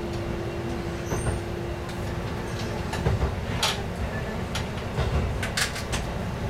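KiHa 11 diesel railcar running along the track, heard from the cab: a steady low rumble of engine and wheels on rail, with a hum that drops away about three seconds in and several sharp clicks from the wheels in the second half.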